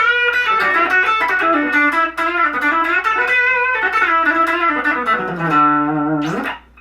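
Guild Aristocrat HH electric guitar played through a Line 6 amp with a little gain: a riff of quick single notes and double-stops on the bridge pickup, which is thin on single notes. It ends on a held low note that slides up near the end and is cut off.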